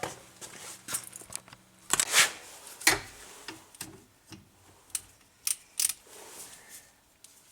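Scattered clicks, knocks and brief scraping noises of metal tools and brake parts being handled, with a louder rustling scrape about two seconds in and a sharp knock about a second later.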